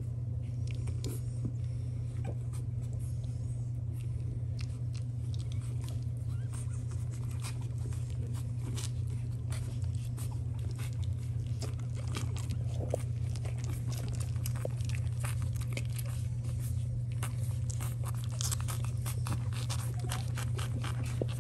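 Week-old French bulldog puppies suckling at their mother: a dense, irregular run of small wet smacking clicks, over a constant low hum.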